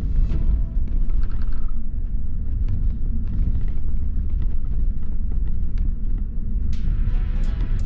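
Steady low rumble of a double-decker coach's engine and tyres on the road, heard from inside the cabin.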